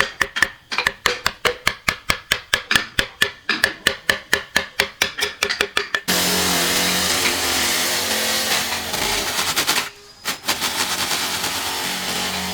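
Rapid, even tool strikes, about five a second. Then an abrupt cut to a power tool running steadily with a low hum, which drops out briefly about ten seconds in.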